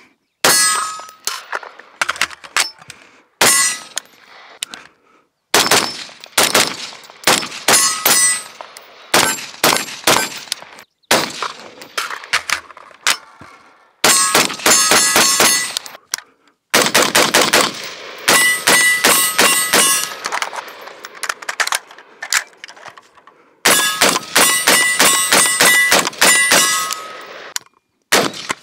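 AR-15 rifles fired semi-automatically, in single shots and fast strings of several rounds a second, with the fastest strings about halfway through and near the end. A metallic ringing hangs over the strings.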